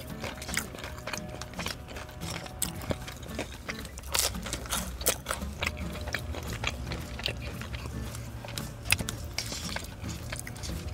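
A person eating close to the microphone: chewing with many small wet smacks and clicks, over a steady low hum.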